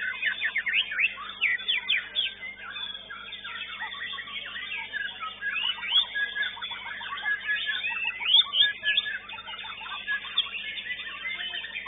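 Caged songbirds singing over one another: a dense, fast stream of whistles, trills and chirps, with a faint steady hum underneath.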